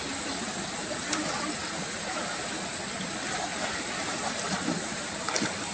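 Steady rush of moving water, with a couple of sharp clicks about a second in and near the end.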